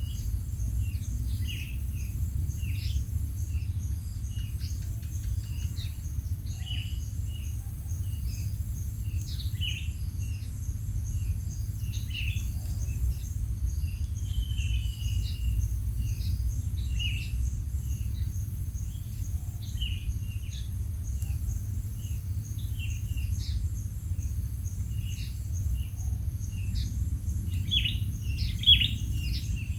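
Quail giving many short chirps, scattered and irregular, with a small cluster of louder ones near the end. Behind them run a steady high insect buzz and a low rumble.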